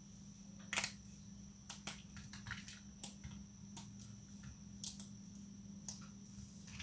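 Thin plates of dried soap being snapped and broken by hand: a series of sharp, crisp cracks, the loudest about a second in.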